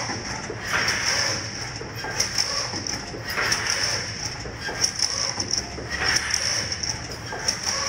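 High-speed chicken wire (hexagonal wire mesh) making machine running: a steady high whine with fast clicking, and a swelling rush of noise that comes back three times, about every two and a half seconds.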